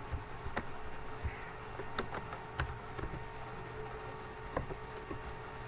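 A few scattered clicks from a computer keyboard and mouse, over a steady low hum.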